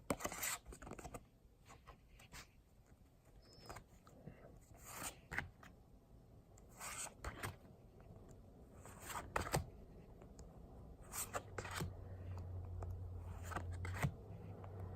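Trading cards being handled: a dozen or so short swishes and rustles as cards from a freshly opened Pokémon booster pack are slid and flipped one behind another.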